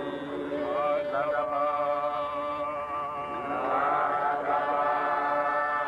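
Voices chanting a prayer together in long, held notes that shift pitch every second or two.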